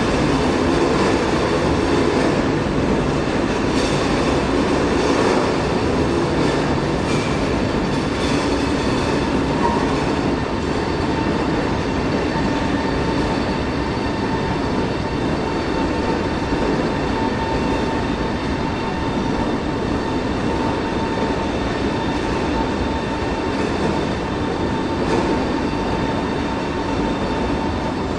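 SBB double-deck electric passenger train rolling slowly along a station track: a continuous rumble of wheels and carriages with a faint steady whine, easing off slightly after about ten seconds.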